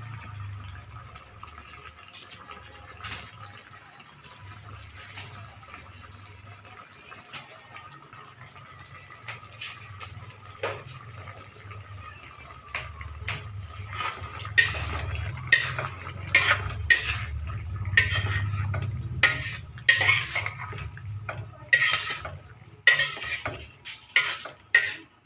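Spatula scraping and knocking against a large metal wok while a thick stew of pork, corn and potato is stirred, over a low steady rumble. Faint at first, the strokes turn loud and regular about halfway through, roughly one a second, and come quicker near the end.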